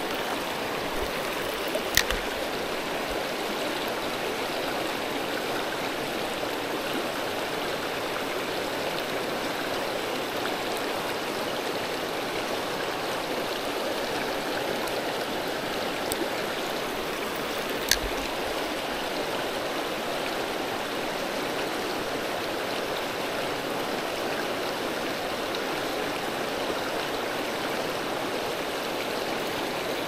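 Mountain stream flowing steadily, a constant rush of water, with two short sharp clicks, one about two seconds in and one about eighteen seconds in.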